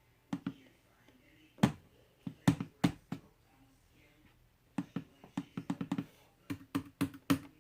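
Clicking at a computer: sharp clicks in quick, irregular runs of two to six, about a dozen clusters in all, the loudest about a second and a half in and near the end.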